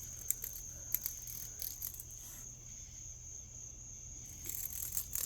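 Steady high-pitched drone of insects calling, with scattered light clicks and taps over it.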